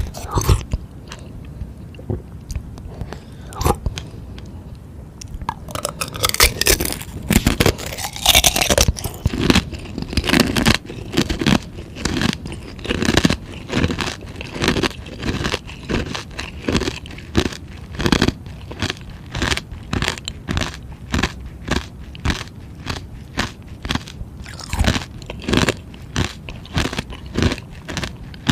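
Close-miked crunching of a frozen purple ice treat being bitten and chewed. A few scattered clicks come first, then from about five seconds in there are loud crunching bites, followed by steady chewing crunches about twice a second.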